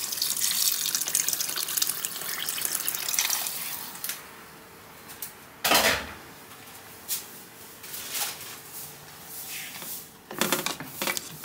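Water pouring from a jug into a large aluminium cooking pot of lamb head and legs in broth, a steady splashing for about the first four seconds. A single sharp knock follows about halfway through, and a spoon clatters and stirs in the pot near the end.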